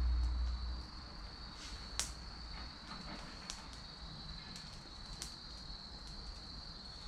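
Wood fire crackling in a fire pit, with a handful of sharp pops from the burning logs, the loudest about two seconds in. A steady high-pitched tone runs underneath, and a low rumble fades out within the first second.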